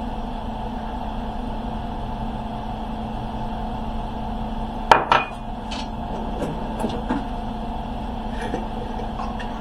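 Kitchen utensil clattering against cookware once, sharply, about five seconds in, then a few light clicks and taps, over a steady background hum.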